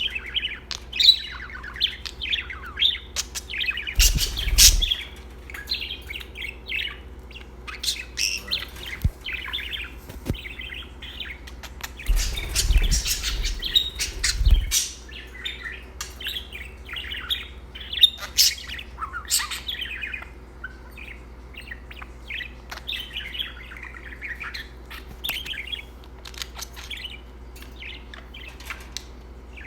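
Budgerigar chattering and warbling: a fast, continuous run of chirps and whistles. Two short stretches of rustling rumble come about 4 seconds in and again around 12 to 14 seconds.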